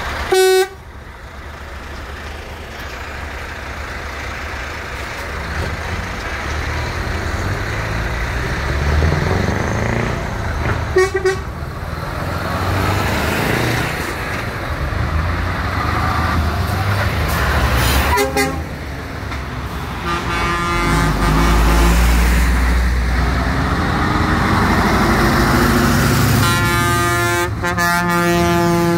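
Heavy trucks driving past with their engines revving up, and truck air horns sounding: a loud short blast right at the start, brief toots twice in the middle, and a long horn blast near the end.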